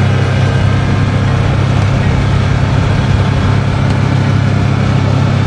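Side-by-side utility vehicle's engine running in a steady low drone as it drives along a gravel path, with tyre and road noise, heard from the seat.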